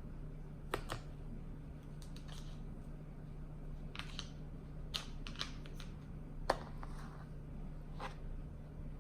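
Small scattered clicks and taps of sand toys and molds handled in kinetic sand, about ten in all and irregular, the sharpest about two-thirds of the way through, over a steady low hum.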